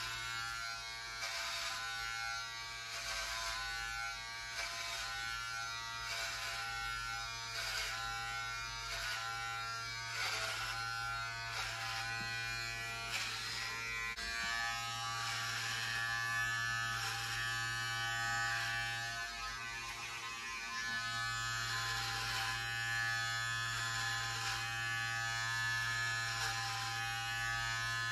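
Electric hair clippers running with a steady buzz while cutting hair short, with a short burst of noise about once a second as the blades pass through the hair.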